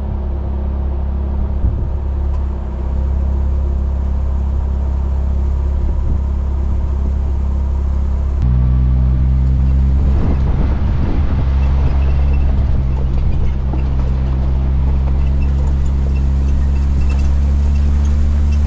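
A 4x4 vehicle's engine running with a steady low drone, its note changing abruptly about eight and a half seconds in.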